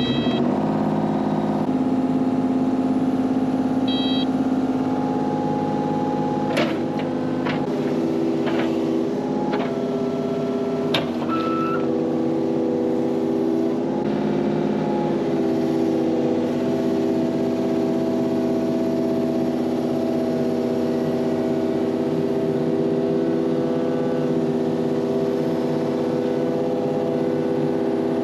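A small engine running steadily, its speed shifting slightly a couple of times, with a few sharp knocks about a third of the way in.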